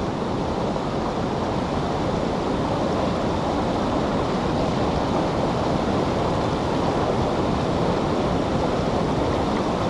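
River water rushing steadily over a shallow riffle, an even hiss with no breaks.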